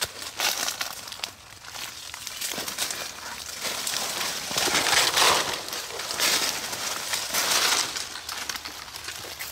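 Palmetto and undergrowth rustling and crackling as someone pushes through it, in uneven bursts that are loudest about halfway through.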